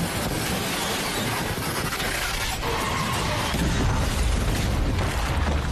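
Action-movie sound mix: crashing and shattering debris over a music score, with a heavy low rumble building in the second half.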